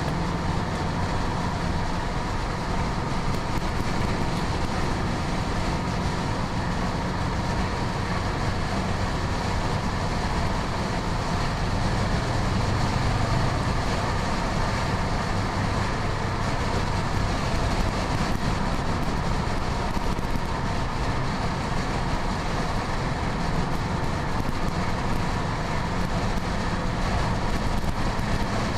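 Car cruising at highway speed: steady road and wind noise over a low engine drone, which grows stronger for a few seconds about twelve seconds in.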